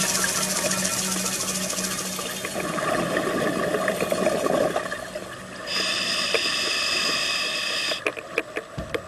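Scuba diver breathing through a regulator underwater: hissing inhales alternating with bubbling exhales, with a crackle of exhaust bubbles near the end.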